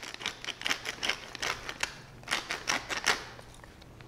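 Wooden pepper mill grinding black peppercorns: rapid crunching clicks in several bursts, stopping about three seconds in.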